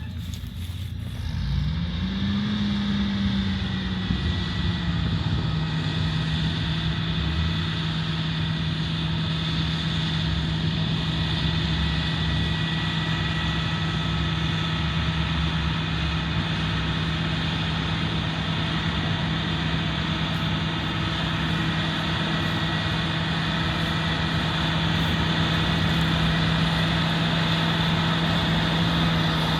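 John Deere 8270R tractor engine running steadily. Its pitch rises about a second and a half in, peaks briefly, then settles a little lower and holds steady.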